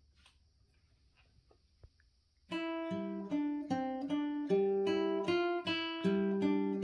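Nylon-string classical guitar: after about two and a half seconds of near silence, a plucked melody of single, evenly paced notes begins, about two or three a second, over ringing lower bass notes.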